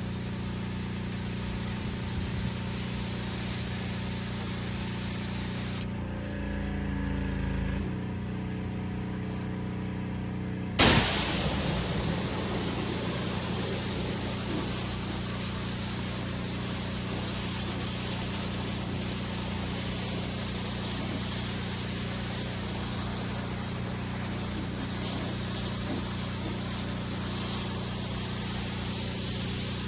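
Pressure washer's engine running steadily under the hiss of the high-pressure water spray. After about six seconds the spray stops and the engine note shifts for about five seconds, then the spray comes back on with a sudden loud blast.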